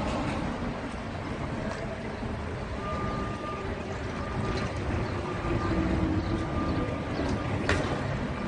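Street traffic dominated by the low rumble of heavy diesel vehicles running, a backhoe loader and a loaded truck among them. A sharp click near the end.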